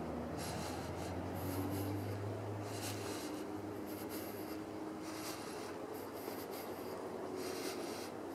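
Footsteps scuffing along a sealed walking path, an irregular scrape about every half second to second, over a steady hiss. A low hum fades out about three seconds in.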